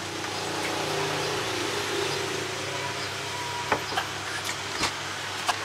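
Steady drone of a nearby motor engine over street noise, with a few sharp clicks and taps in the second half as a metal spoon and a small plastic sauce cup are handled.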